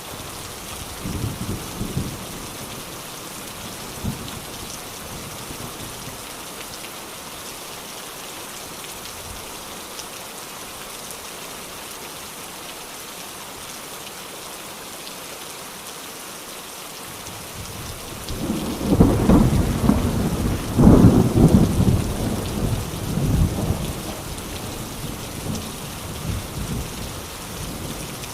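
Steady rain falling, with thunder: a couple of faint low rumbles near the start, then a loud roll of thunder about two-thirds of the way in that slowly dies away.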